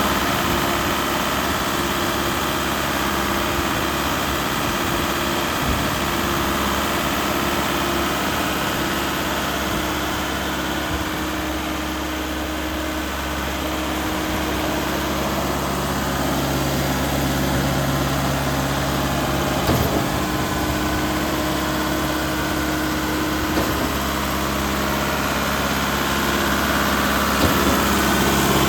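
Deutz BF4M2012 four-cylinder diesel engine of a Putzmeister TK70 concrete pump running steadily, with a few brief knocks.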